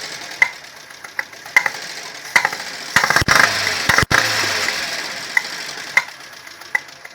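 Ford CHT four-cylinder engine running and briefly revved about three seconds in, with sharp irregular ticking over the engine noise. The mechanic later traces the fault to a valve out of adjustment, with a rocker slipped off so the valve no longer opens, which gives a misfire.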